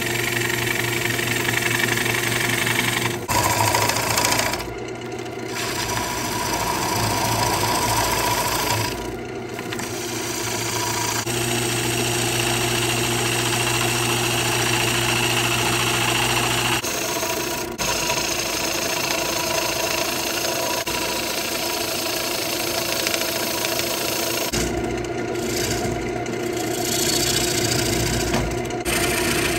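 Wood lathe running with a steady motor hum while a bowl gouge cuts the inside of a spinning wet ambrosia maple bowl, giving a rough, continuous scraping hiss of shavings peeling off. The cutting noise stops briefly several times as the tool comes off the wood.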